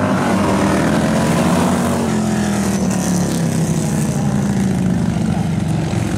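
Several bagger touring motorcycles racing through corners, their big twin-cylinder engines revving together, with pitch rising and falling as the riders ease off into the bends and accelerate out.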